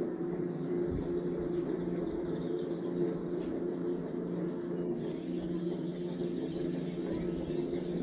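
A steady low droning hum with two held low tones that never let up.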